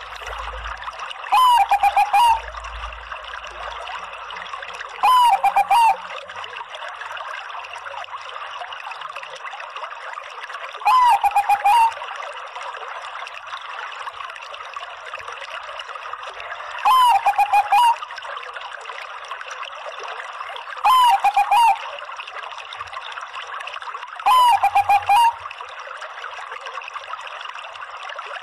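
Bangkok-type zebra dove (perkutut) cooing, six phrases of about a second each, a hooked note followed by a quick run of short notes, every four to six seconds. Under them runs a steady trickle of water.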